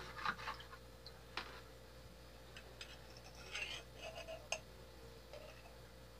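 Metal spoon stirring in a small plastic bowl of orange glaze for a moment, then faint scattered clicks and light clinks of the spoon against the bowl as honey is spooned in.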